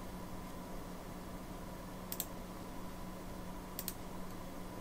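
Computer mouse button clicking twice, about a second and a half apart, each click a quick double tick, over a faint steady hum.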